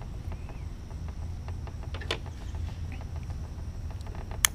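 Small clicks and ticks of bonsai wire and tools being handled while a branch is wired, over a low steady hum. There is a sharper click about two seconds in and the loudest, sharp click near the end.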